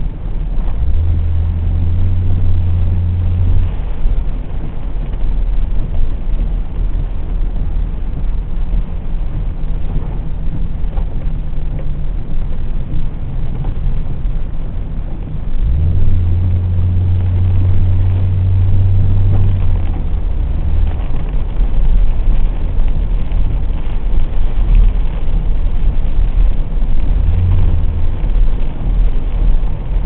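Car driving on a wet road, heard from inside the cabin: a steady low rumble of engine and tyres. A deeper hum swells in for a few seconds near the start and again for a few seconds from about halfway.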